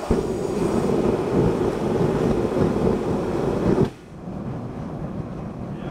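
Gas forge being lit: the burner catches suddenly and runs with a loud, deep rushing noise, then drops abruptly to a quieter steady rush about four seconds in.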